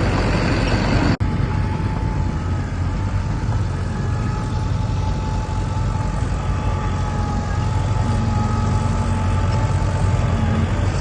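Heavy diesel earthmoving machinery running steadily under a low engine rumble, with a faint steady whine above it. There is a brief dropout about a second in.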